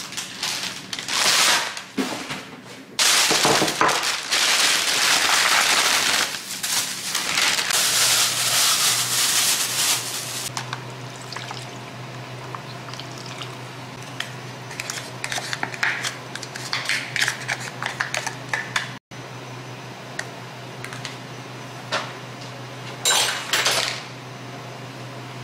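Takeaway food being unpacked: loud crinkling and rustling of plastic bag and packaging for the first ten seconds or so. Then broth is poured from a plastic tray into an earthenware pot, with light clinks of dishware and another short rustle near the end. A low steady hum runs underneath from about eight seconds in.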